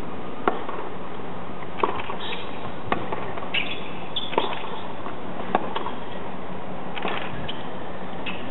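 Tennis rally: sharp pops of racquets striking the ball and the ball bouncing on a hard court, one every second or so, over a steady low hum.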